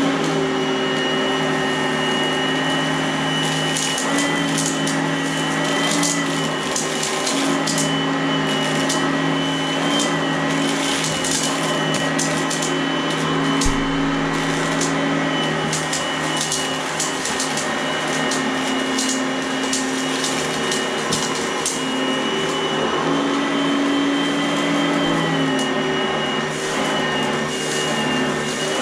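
Oreck upright vacuum cleaner running with a steady motor whine whose pitch steps slightly up and down a few times, while it sucks up scattered debris from a rug with frequent sharp clicks and rattles.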